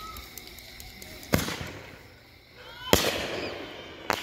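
Consumer firework cake shots bursting overhead: three loud sharp bangs, the first about a second in and the others roughly a second and a half and a second after it, each trailing off in a short rumble.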